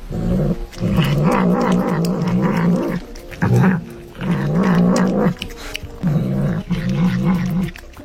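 A domestic cat growling while eating: about four long calls in a row with a wavering pitch, separated by short breaks.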